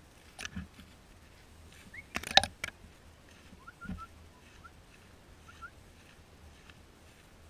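A quick cluster of sharp clicks and knocks about two seconds in, with a few lighter clicks and a low thump around it, then several faint short bird chirps.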